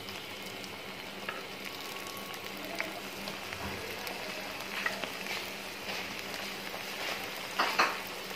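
Spring rolls deep-frying in hot oil: a steady sizzle with scattered crackles, and a louder burst of crackling about three-quarters of the way through.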